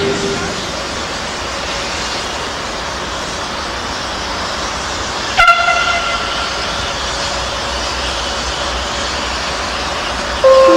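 Steady rumble of trains moving through a station track layout, with one short toot from an electric locomotive's horn about five and a half seconds in, fading over a second or so. Just before the end a new steady tone begins.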